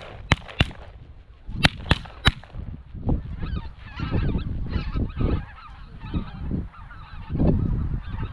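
About five shotgun shots in quick succession in the first two and a half seconds, then a flock of geese calling continuously. Wind rumbles on the microphone throughout.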